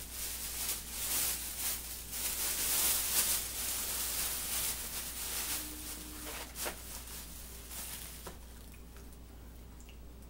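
Thin plastic shopping bag rustling and crinkling as hands dig into it and pull out a cardboard box. It is loudest in the first half, with a couple of sharp crinkles later, and dies down after about eight seconds.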